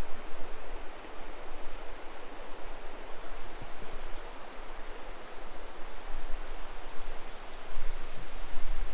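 Shallow river flowing over a stony bed and riffles: a steady rushing hiss. Wind on the microphone adds a low rumble that grows stronger near the end.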